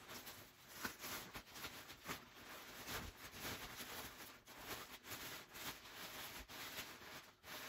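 Clear plastic packaging bag around a new baby stroller rustling and crinkling irregularly as it is handled and pulled off.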